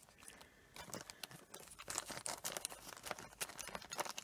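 Clear polythene bags crinkling and rustling in a plastic storage box as a hand sorts through them, with many small crackles and ticks starting about a second in.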